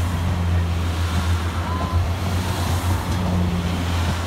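Northern Class 142 Pacer diesel railbus running past along the platform, its underfloor diesel engine giving a steady low drone over the rumble of the wheels on the rails.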